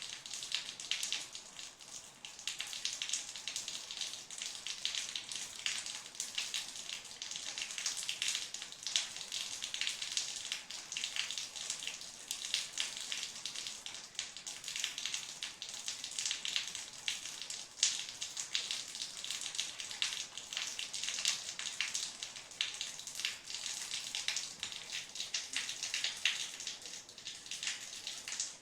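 Rain falling steadily: a dense, continuous run of small drop impacts on a hard surface, sharp and bright.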